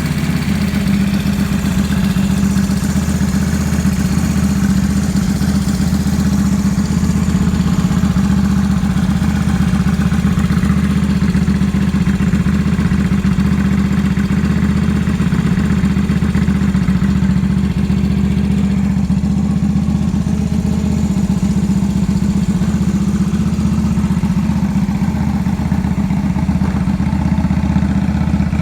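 Yamaha Drag Star 250's air-cooled V-twin idling steadily through an American Dreams gatling aftermarket muffler. It runs evenly, with no abnormal noise.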